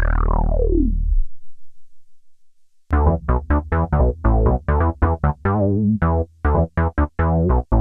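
Roland Jupiter-X synthesizer playing a Jupiter-8-style patch: a held chord whose brightness sweeps down as it fades out in the first second. After a short silence, a fast sequence of short plucked synth notes with a bass line, about four notes a second.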